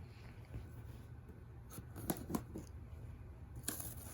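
Faint handling noises of unboxing a power tool: a few light clicks and knocks as packaging and parts are moved about, over a low steady room hum.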